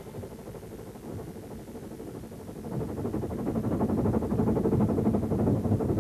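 Steam rack locomotive of the Brienz Rothorn Bahn working uphill as it pushes its carriages, with rapid chuffing and running-gear noise that swells about three seconds in as the engine draws near.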